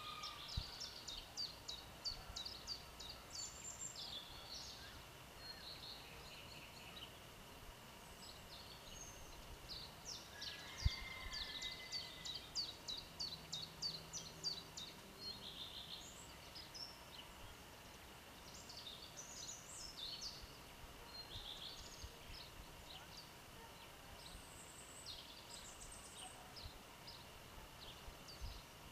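Several songbirds singing together: rapid series of high chirps and trills, busiest near the start and again around the middle. A single dull thump sounds about eleven seconds in.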